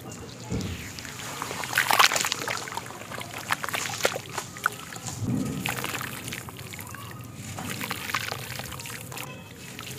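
Hands sloshing in a tub of water and squeezing wet black sand, which crumbles and pours back into the water in streams and drips. Irregular wet crunches and splashes, loudest about two seconds in.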